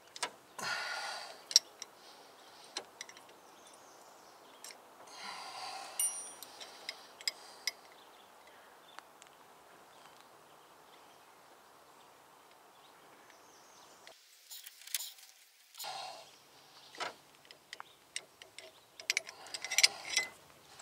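Scattered metallic clicks and clinks from a brake-line flaring tool, its clamping bar and yoke being handled and fitted onto a new brake line, with a few short rustling scrapes in between.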